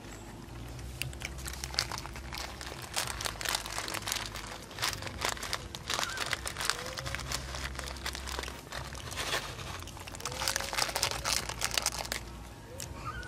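Dense irregular crackling and crunching, heaviest in two spells, over a low rumble, with a few faint short rising squeaks.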